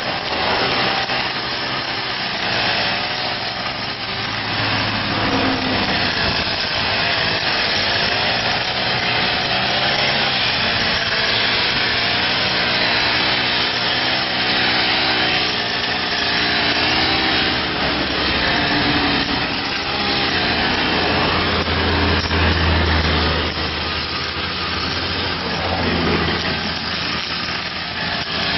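Petrol brush cutter running and cutting through grass and weeds, its small engine's pitch rising and falling as the throttle and cutting load change.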